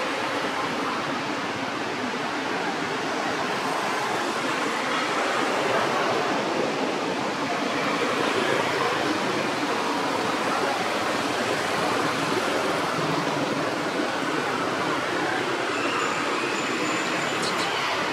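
Steady, even rushing noise with no clear rhythm or pitch. A brief thin high tone and a couple of faint clicks come near the end.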